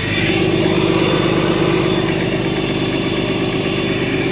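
Dodge Ram's 6.7-litre Cummins turbo-diesel straight-six running steadily, with a low steady drone that comes in right at the start.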